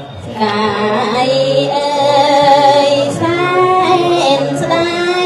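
A woman chanting Khmer smot, Buddhist sung recitation: long held, slightly wavering notes that bend from one pitch to the next, starting about half a second in.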